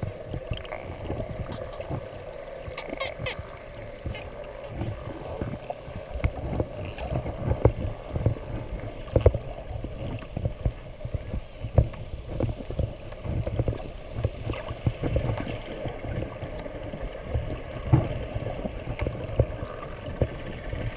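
Spinner dolphins whistling underwater: many short high squeals gliding up and down, thickest in the first half. Beneath them run a steady low hum and frequent low knocks.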